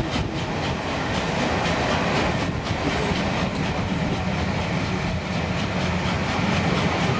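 Passenger coaches of a steam-hauled train rolling past close by, with a steady rumble and the clickety-clack of wheels over rail joints.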